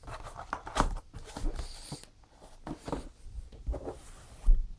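Cardboard packaging being handled: scattered rustles, scrapes and light taps, with a dull thump near the end.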